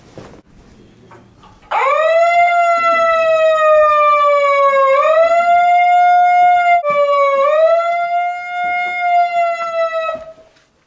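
A loud, siren-like wail begins about two seconds in: one high held tone that scoops up, sags slowly in pitch and swells back up. It breaks off for an instant about two-thirds of the way through, resumes, and dies away near the end.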